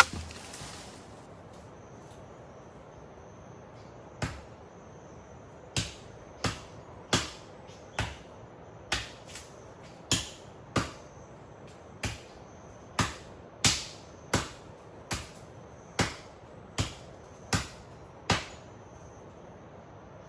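Wood being struck over and over with a tool, a sharp knock about every two-thirds of a second, around twenty strikes starting about four seconds in, each with a brief high ring.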